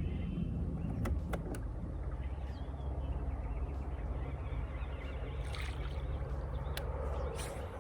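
Boat motor running steadily with a low hum, cutting out at the end, with a few light clicks over it.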